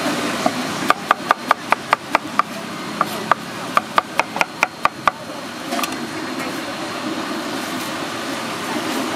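Cleaver chopping guava on a wooden cutting board: two quick runs of sharp knocks, about five a second, for about four seconds.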